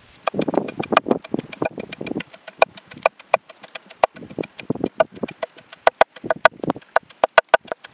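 A spoon clinking and knocking rapidly and unevenly against a bowl while chopped onion, tomato, green chilli and coriander are mixed, with duller thuds in the first couple of seconds and again past the middle.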